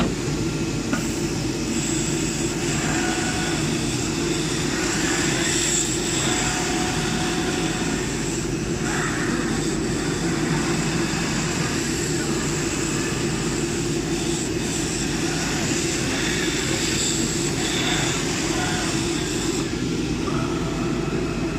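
CNC leather cutting machine running: a steady mechanical drone with faint higher whines that come and go.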